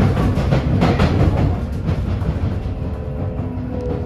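Sotetsu 8000 series electric train running, its Hitachi IGBT inverter and traction motors heard under a steady rumble of wheels on rail, with clacks over rail joints in the first second. Near the end a steady inverter tone comes in and falls slowly in pitch as the train slows.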